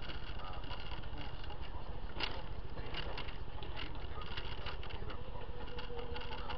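Car interior noise picked up by a dashcam: a steady engine and road rumble while driving on a wet road, with scattered light ticks and one sharper click about two seconds in.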